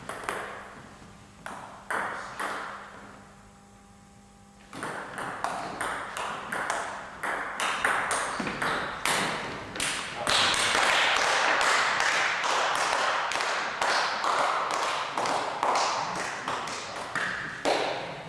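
Table tennis ball clicking off bats and the table at irregular intervals, with a quieter gap about three seconds in. Through the second half a loud, dense rush of noise runs under the clicks.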